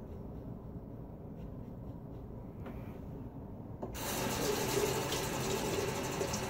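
Faint scratchy strokes of a Parker 24C open-comb safety razor on neck stubble, then about four seconds in a sink tap is turned on and water runs into the basin in a steady rush.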